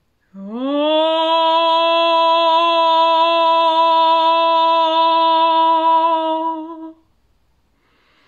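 A woman's voice sings one long held vowel as sound-meditation toning. It slides up at the start, holds a steady pitch for about six and a half seconds, then stops.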